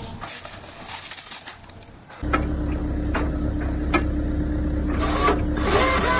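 Excavator grapple saw's hydraulics start running about two seconds in, with a steady hum and a few sharp clicks. Near the end a rising whine levels off into a steady high tone as the saw's drive spins up.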